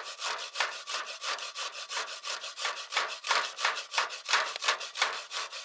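Rhythmic back-and-forth rasping strokes, about three or four a second, like a hand saw or a rasp worked quickly.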